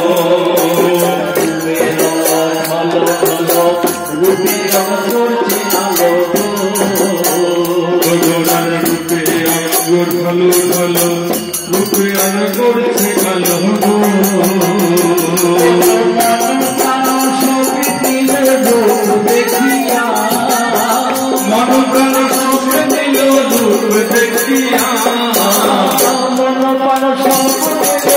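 Bengali devotional kirtan: voices singing a chant over a steady, fast jingle of hand cymbals.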